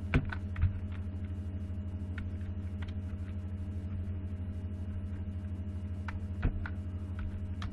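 Computer keyboard keystrokes, a few scattered clicks with long gaps between them, over a steady low electrical hum.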